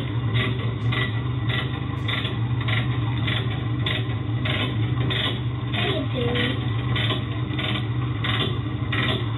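Suzuki Samurai rail cart's engine running with a steady low hum, and a regular clicking about twice a second as the cart rolls slowly along the rails.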